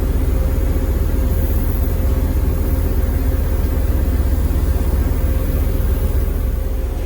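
Steady low engine rumble with a constant hum over it, as heard from inside a vehicle.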